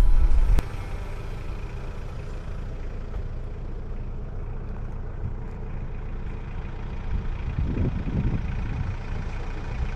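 Music cuts off with a click just over half a second in, leaving a steady low rumble that swells briefly near the eight-second mark.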